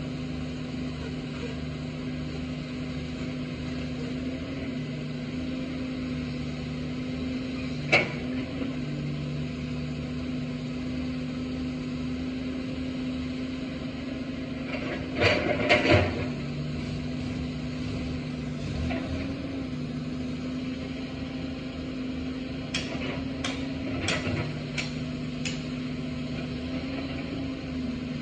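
Caterpillar 320D hydraulic excavator running steadily while digging, its diesel engine and hydraulics droning. There is a sharp knock about eight seconds in, a cluster of loud clanks around halfway, and a few lighter clicks near the end.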